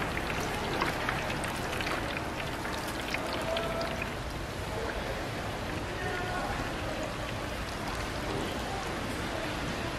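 Hot oil sizzling steadily with small crackles as battered green chili peppers deep-fry, with faint voices in the background.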